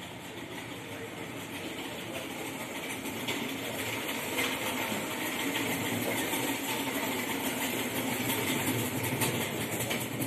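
Airbus A380's jet engines running at taxi power: a steady rushing jet noise that grows gradually louder as the airliner taxis.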